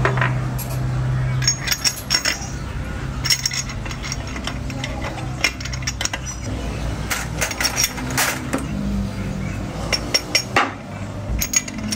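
Steel gears and parts clinking and knocking against each other and the metal housing as they are handled and set into a tractor gearbox, in irregular sharp taps over a steady low hum.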